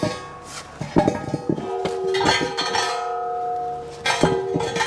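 Steel axle stands being set under a car: several sharp metal clanks, each followed by a ringing tone.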